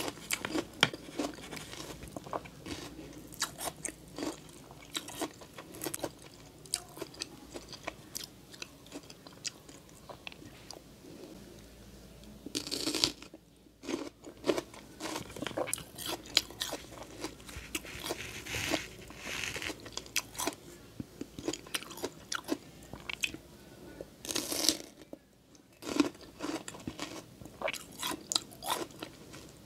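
Close-miked crunching bites and chewing of raw kamias (bilimbi) fruit: a dense run of sharp, crisp crunches, with two longer, louder bursts in the middle and near the end.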